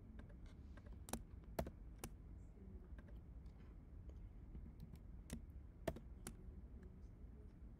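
Faint laptop keyboard keystrokes: six sharp clicks in two groups of three, about half a second apart, as notebook cells are run, over a low steady background hum.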